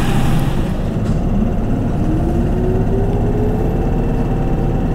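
Keihan city bus running with a steady low rumble, heard from inside the bus. About two seconds in its engine note starts climbing steadily as the bus accelerates away.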